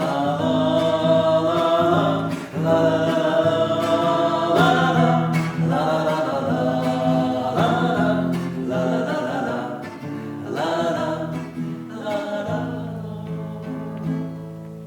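Voices singing a wordless "la-la-la" refrain over strummed acoustic guitar, getting quieter over the last few seconds as the song ends.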